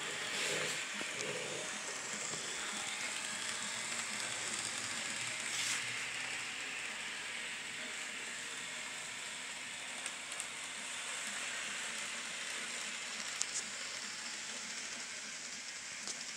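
N scale model train rolling along the track: a steady hissing rattle of small wheels on rail, with a few short clicks in the second half.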